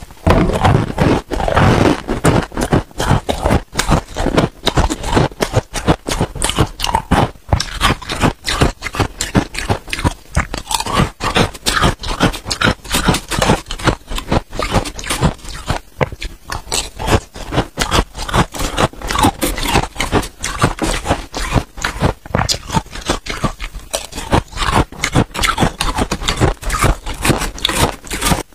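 Freezer frost crunching as it is bitten and chewed, a dense run of rapid crisp cracks, mixed with a metal spoon scraping and scooping frost in a metal pot.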